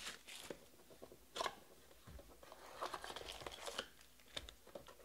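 Cardboard trading-card box and foil-wrapped card packs being handled: faint, scattered rustles, crinkles and light taps, busiest about halfway through.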